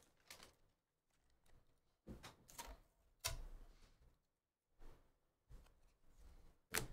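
Faint clicks and rustles of trading cards being handled and flipped through, as short separate snaps about a second apart.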